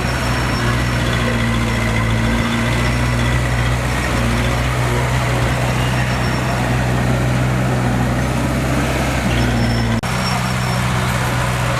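Heavy earthmoving machine's diesel engine running steadily and loud, with a sudden short drop about ten seconds in.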